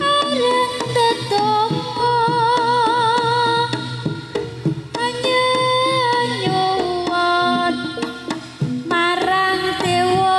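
Jaranan gamelan music: kendang drums beating steadily under a held melody that wavers and slides between notes.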